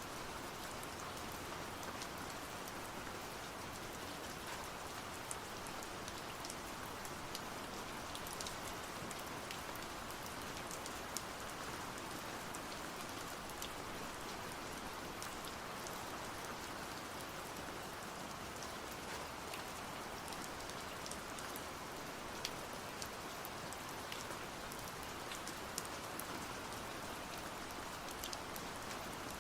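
Steady heavy rain: an even hiss of rainfall with scattered sharp drop ticks on a surface.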